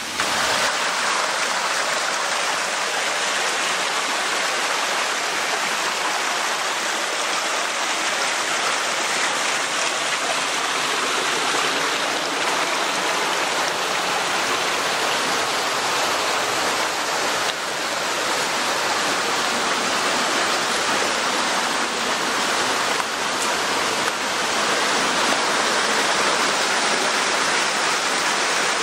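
A mountain stream rushing over small waterfalls and cascades: a steady rush of water that grows a little louder in the last few seconds.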